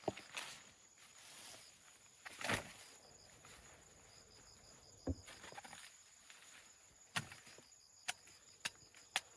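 Scattered sharp knocks and clicks, with a short rustling burst about two and a half seconds in, over a faint steady chirring of crickets.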